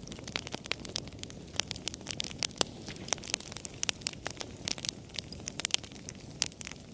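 Wood fire in a fireplace crackling: many sharp, irregular pops and snaps over a low steady rumble of burning.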